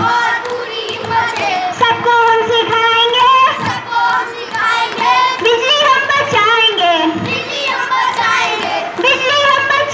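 Children singing a song together, with a girl's voice leading through a microphone: long held notes that glide between pitches.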